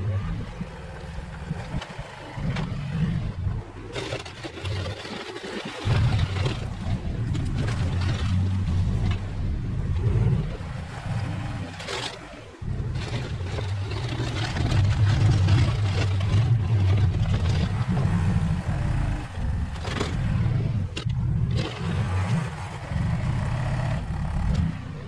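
Engine of an earth-moving machine pushing dirt, working under varying load, its level and note rising and falling, with a few brief drops.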